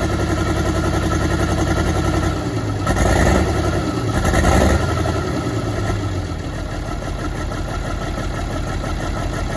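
Track Marshall 90 crawler tractor's diesel engine running with a misfire, revved up briefly twice, about three and about four and a half seconds in, then dropping back to steady running. The engine's block is cracked.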